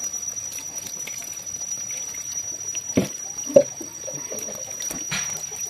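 Water splashing and trickling as climbing perch fingerlings are handled in a wet plastic sorting basket, with a couple of sharp taps around the middle, the second the loudest.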